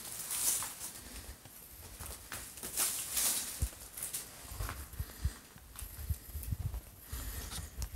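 Irregular footsteps scuffing and crunching on a debris-strewn floor, with scattered light knocks and rustles.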